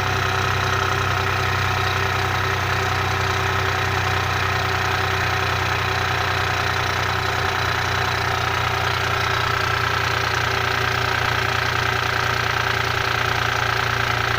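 Alfa Romeo Brera 3.2 V6 idling with a clatter from the top of the engine, which the owner asks may be the hydraulic lifters, the timing chain reportedly being new. Even and steady, with one whining tone in it growing a little stronger about halfway through as the engine warms up.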